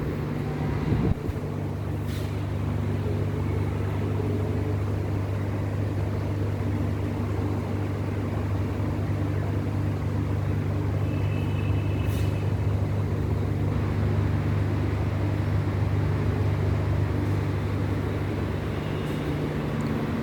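Steady low machine hum running throughout, with a few faint clicks.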